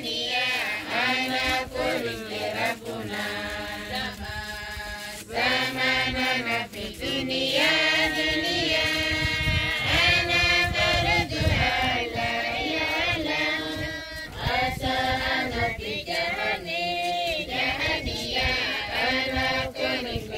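A group of voices singing a hymn together, with held, sliding notes.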